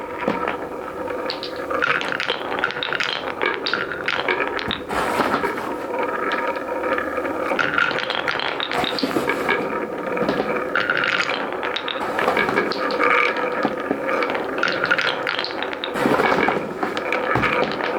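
Many marbles rolling and clattering along a wooden marble run track: a dense, continuous stream of clicks and rattles.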